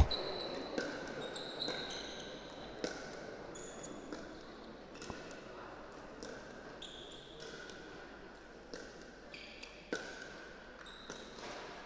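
Pickleball rally: paddles striking the plastic ball in sharp taps about once a second as the players trade dinks at the net. Short squeaks come from shoes on the court floor between hits.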